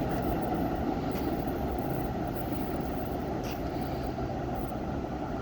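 Kawasaki R211S subway train running along the track, a steady low rumble that slowly fades.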